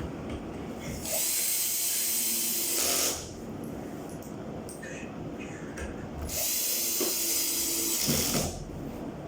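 A power tool runs in two bursts of about two seconds each, with a high whine and hiss, about a second in and again near the end.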